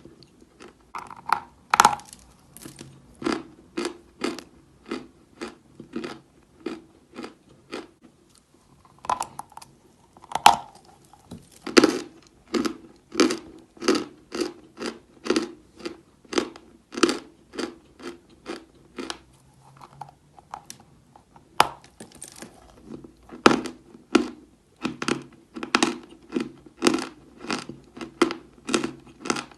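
Close-miked crunching of chalk being chewed, a steady run of crisp crunches roughly twice a second, with a couple of short pauses.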